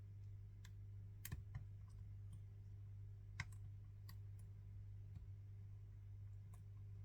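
Small, sharp, irregular clicks of a lock pick and tension wrench working the pins of a BSS lock during single-pin picking, over a steady low electrical hum.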